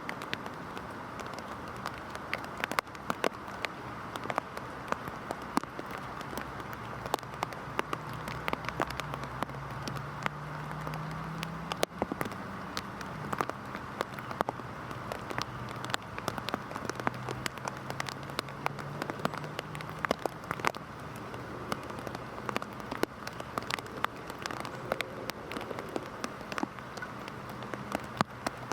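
Heavy rain falling steadily, with many sharp individual drops striking a nearby surface. A faint low hum wavers underneath.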